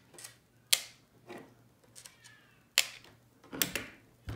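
Small screws dropped one at a time into a clear plastic box: two sharp clicks about two seconds apart. A few quicker clicks and knocks follow near the end as the radar detector's plastic case is handled and picked up off the table.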